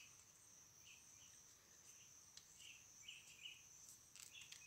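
Faint forest insects: a steady high-pitched drone, with short calls repeated in little groups of two or three, and a few faint clicks near the end.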